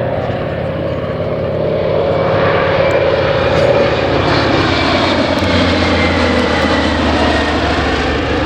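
Antonov An-2's nine-cylinder radial engine and propeller as the biplane flies past, growing louder over the first two seconds or so and then holding, its pitch sinking slightly as it passes.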